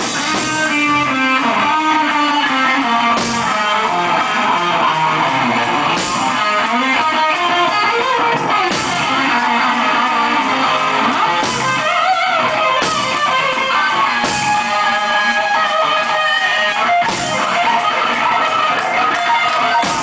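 Live band playing loudly, with an electric guitar to the fore and its lead lines bending in pitch over the band.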